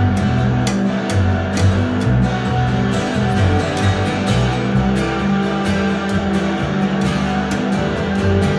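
Live instrumental music: a plucked upright double bass holds deep notes that change every second or so, under a strummed and picked acoustic string instrument. Crisp attacks come at a regular beat.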